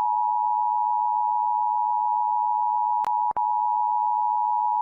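Emergency Alert System attention signal: a steady two-tone alarm of two close pitches sounding together, broken by a click and a brief dropout about three seconds in.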